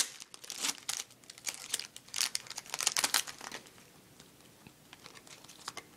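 Foil wrapper of a Topps Chrome card pack crinkling and tearing as it is ripped open and the cards pulled out, in irregular rustles that die away after about three and a half seconds.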